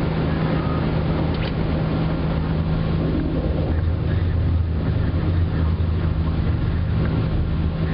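Airbus A330 airliner's jet engines and rushing air making a steady drone with a low hum.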